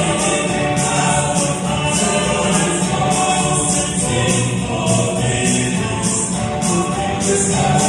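Vocal quartet singing a gospel song in several-part harmony over instrumental backing with a steady beat.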